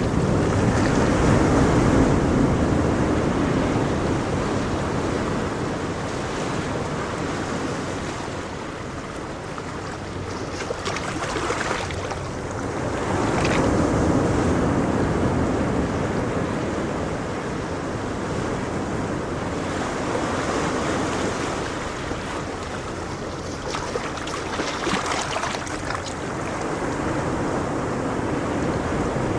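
Ocean waves breaking and washing in, the surf rising and falling in slow surges, with some wind.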